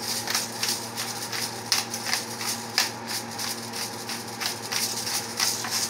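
Hand-twisted pepper mill grinding black pepper, a steady run of short gritty crunches about three a second, over a faint steady hum.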